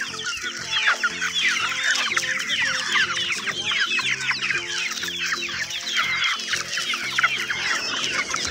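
A large flock of hens calling all at once: dense, overlapping clucks and squawks with no break, with a steady backing tune of music playing underneath.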